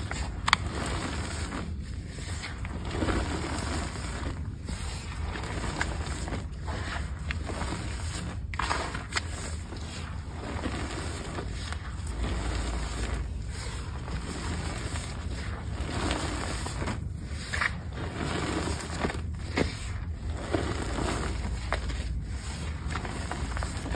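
Hands repeatedly squeezing and pressing into a bowl of crumbled Bon Ami and cornstarch blocks, each squeeze a soft powdery crunch, with a few sharper crackles.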